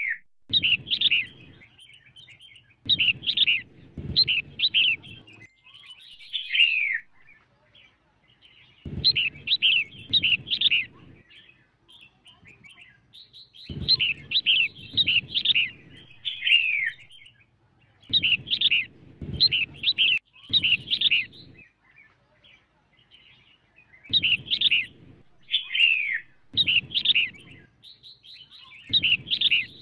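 Female red-whiskered bulbul calling: clusters of three or four quick, sweeping whistled notes, repeated with short pauses between. This is the kind of female call played to rouse male bulbuls into singing.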